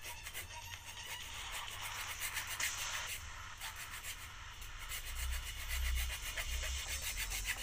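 Hacksaw cutting through a plastic toothbrush handle: steady back-and-forth rasping strokes of the blade in the plastic.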